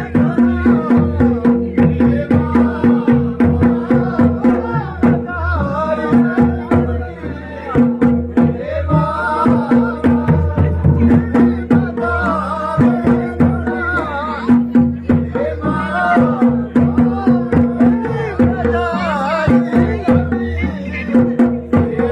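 Pahari nati folk music: an even drum beat of about two to three strokes a second under a wavering melody line and a steady held note that breaks off and comes back.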